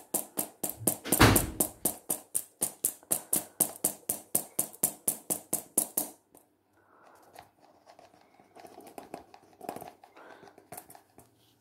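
Hand-held metal mesh sieve shaken and tapped to sift flour into a bowl: rhythmic taps, about four a second, with one louder knock about a second in. The tapping stops about six seconds in, leaving only faint, irregular soft sounds.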